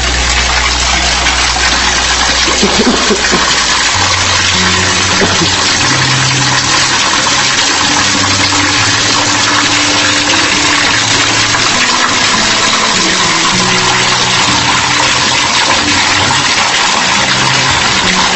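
Water rushing and churning steadily in a water-well drilling rig's flush pit as the pump circulates it through the hoses, over the low hum of the rig's motor.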